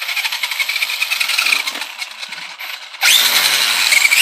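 Electric RC truck's motor and drivetrain spinning the wheels freely off the ground as a test of a newly fitted driveshaft: a whine that rises and falls, then revs up sharply and louder about three seconds in.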